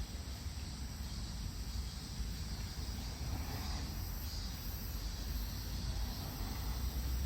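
Insects chirping in faint, high, repeated pulses over a steady low rumble.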